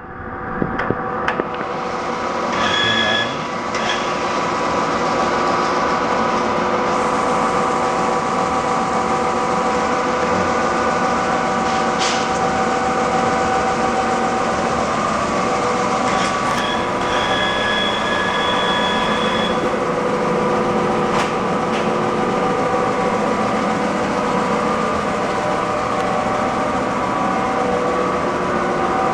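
TOS SN710N engine lathe running, its headstock gearing giving a steady multi-tone whine. A few clicks sound near the start, and the machine grows louder over the first few seconds. A higher tone briefly joins it twice.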